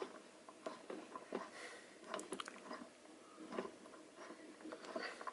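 Irregular small clicks, taps and knocks of chair parts and hardware being handled while screws are turned in by hand during gaming-chair assembly.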